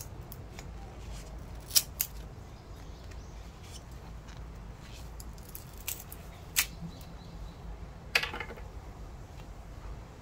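Diagonal cutters snipping and prying at the plastic sleeve and small circuit boards on used supercapacitors: two sharp snips about two seconds in, two more around the middle, and a louder snip with a short crackle about eight seconds in.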